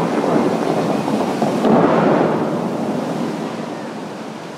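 Bellagio fountain water jets shooting up and the spray crashing back: a loud rush of water that swells about two seconds in and then fades.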